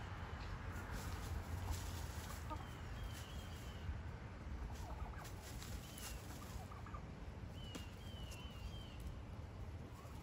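Backyard chickens clucking softly while foraging, with short high chirps repeating in small groups of two or three. A steady low rumble runs underneath.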